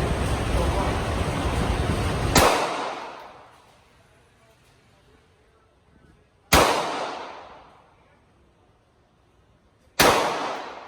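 Three single shots from a Glock 43 9mm pistol, about four and three and a half seconds apart, each ringing out in a long echoing decay. A steady rushing noise runs until the first shot and stops with it.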